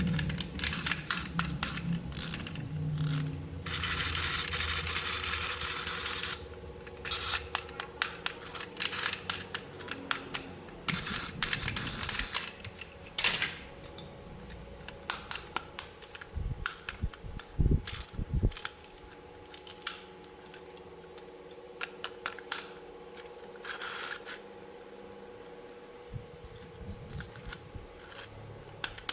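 Plastic toy parts and packaging being handled during an unboxing: a long run of small sharp clicks and taps, with a couple of stretches of rustling or scraping and a few soft low thumps.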